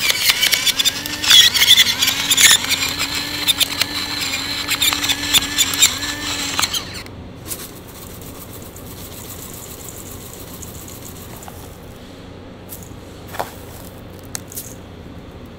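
A pepper mill grinding black peppercorns, a dense crackling with a squeak that stops about seven seconds in. A single knock comes near the end.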